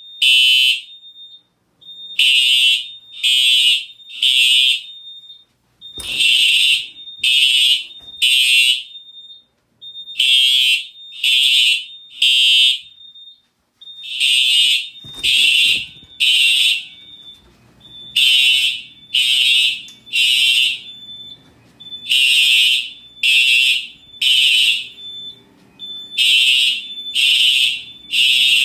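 Simplex fire alarm horns sounding the temporal-3 evacuation code: three loud, high-pitched blasts about a second apart, then a pause, the group repeating every four seconds. A thin steady high tone carries on between the groups.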